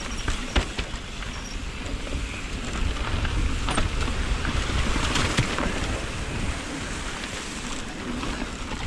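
Mountain bike rolling fast down a trail: tyres running over the dirt surface, with scattered clicks and rattles from the bike, under wind rumbling on the action camera's microphone.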